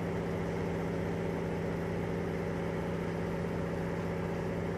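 De Havilland Beaver's nine-cylinder Pratt & Whitney Wasp Junior radial engine and propeller droning steadily in flight as the floatplane climbs out.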